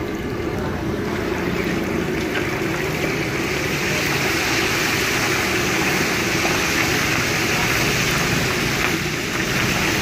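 Whole small birds deep-frying in a wok of hot oil, the oil bubbling and sizzling hard; the sizzle swells over the first few seconds as the meat goes in, then holds steady over a faint low hum.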